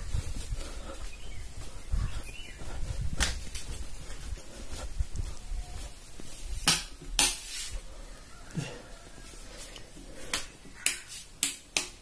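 Scattered sharp clicks and knocks of things being handled and moved, a few seconds apart, with a quick cluster of them near the end, over low rustling from a phone held in the hand.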